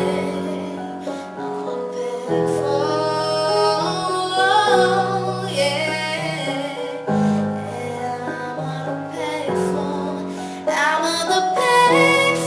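A woman singing over piano chords, the chords changing every two or three seconds.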